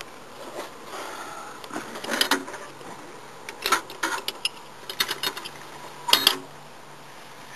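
Scattered metallic clicks and clacks from a .50 caliber rifle being handled, with a few near two seconds in, a busy cluster in the middle and a sharp double click about six seconds in.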